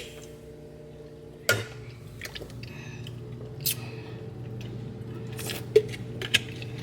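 Low steady hum of water being heated, slowly getting louder, with a click about a second and a half in and a few light taps and clicks later.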